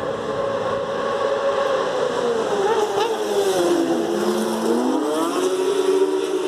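Racing superbike engines at high revs on the track, several engine notes at once. About four seconds in the main engine note dips sharply and climbs back up as a bike comes down the straight.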